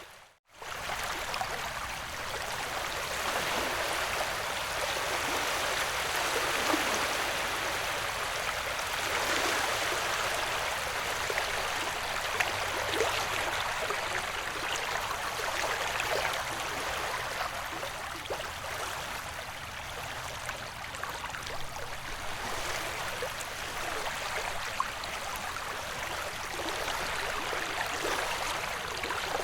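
Steady recorded ocean-wave white noise, a soft continuous rush of water with slow, gentle swells. It cuts out for an instant just after the start, then resumes.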